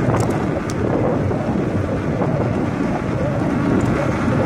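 Wind buffeting a phone's microphone while cycling: a steady low rumbling noise, with a couple of faint clicks within the first second.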